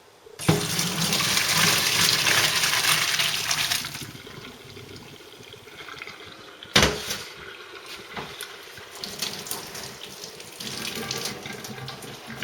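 Pot of boiled pasta and its hot water poured into a colander in the sink: a loud rush of water for about three seconds, then quieter draining and trickling, with one sharp knock about seven seconds in.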